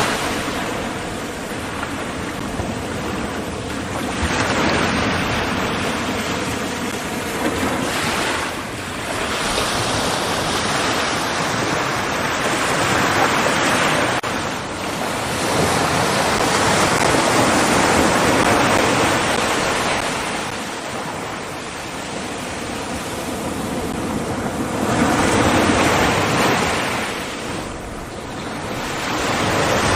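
Ocean surf: waves breaking and washing in, the noise swelling and fading every several seconds.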